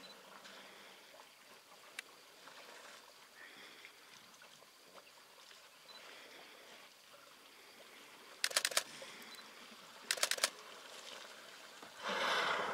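Quiet outdoor ambience at a waterhole, broken by two short bursts of rapid clicking about a second and a half apart, then a brief rushing whoosh near the end.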